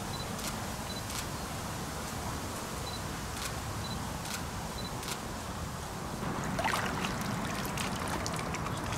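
Camera shutter firing about half a dozen times in the first five seconds, several shots with a short high beep just before; then water splashing and trickling near the end as a large carp is held in the shallows.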